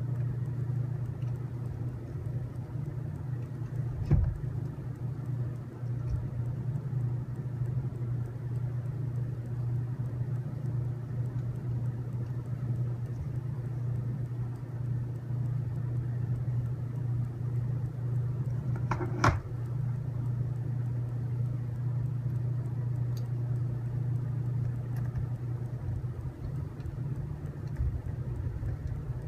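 A steady low hum, with two short sharp knocks, one about four seconds in and one about nineteen seconds in.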